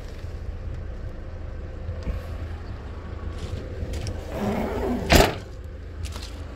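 Pickup tailgate being lifted and slammed shut: a short rattle, then one sharp slam about five seconds in, over a steady low rumble.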